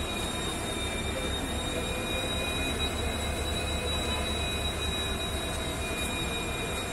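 EMD-built diesel locomotive idling: a steady, slightly pulsing low rumble with a thin high whine over it.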